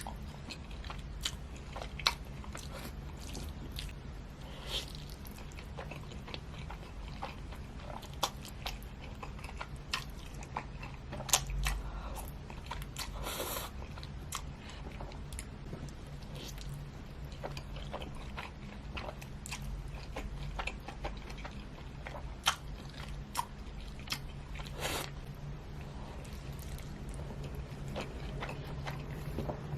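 Close-miked mukbang eating: a person chewing food, with scattered sharp mouth clicks and smacks and a couple of longer, noisier mouth sounds. A faint steady low hum runs underneath.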